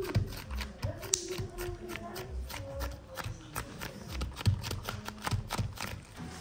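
Gloved hands patting and pressing a soft slab of black candy against a silicone baking mat: a quick, irregular run of slaps and taps.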